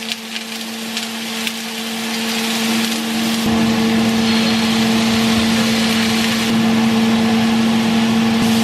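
Broccoli and mushrooms sizzling on a hot griddle pan, the sizzle growing louder once oil is poured over them about three and a half seconds in. A steady hum runs underneath.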